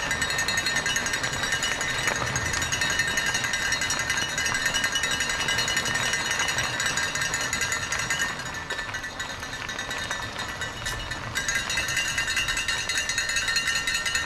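A mountain bike rattling and clattering as it is ridden up a rough climb, with a steady high ringing over the rattle that drops away briefly about two-thirds of the way through.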